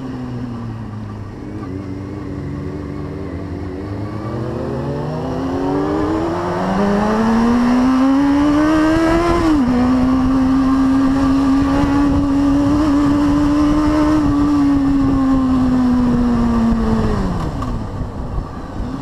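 Honda CB600F Hornet's inline-four engine under way on a mountain road: it revs up steadily, drops in pitch suddenly about halfway through at an upshift, holds a steady pitch, then falls away near the end as the throttle closes.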